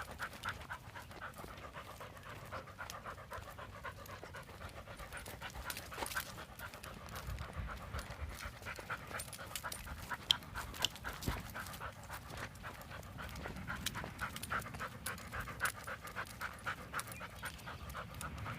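Dog panting hard in a quick, steady rhythm close to the microphone, with a few light knocks.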